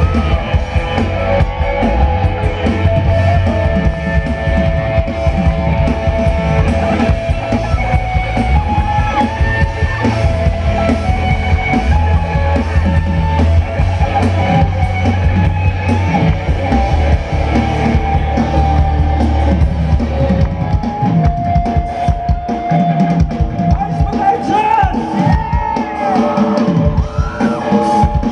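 A rock band playing live, with drum kit, electric guitar and a heavy bass line. The bass drops out about two-thirds of the way through, and a voice sings near the end.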